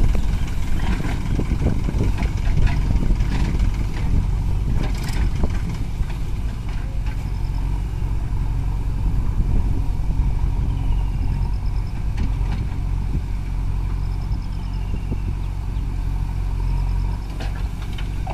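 Diesel engines of a New Holland 3600 tractor and a backhoe loader running steadily at idle, with scattered clattering knocks in the first five seconds as earth is loaded into the tractor's trolley.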